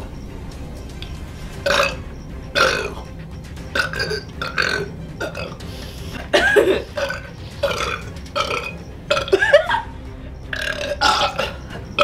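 Women burping in a string of short, separate belches about a second apart, brought up after drinking cola.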